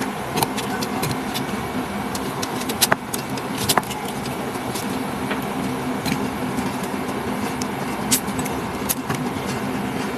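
A steady low mechanical hum with scattered sharp clicks and clinks.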